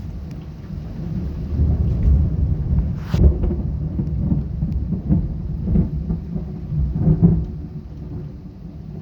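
Thunder rolling and rumbling in a thunderstorm, with a sharp crack about three seconds in and several more claps over the next few seconds before it fades; rain falling underneath.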